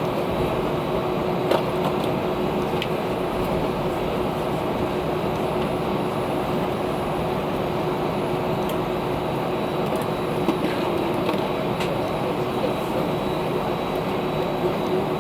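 Steady cabin noise inside an Airbus A320 on the ground after landing: an even hum with a constant low tone and a few faint clicks.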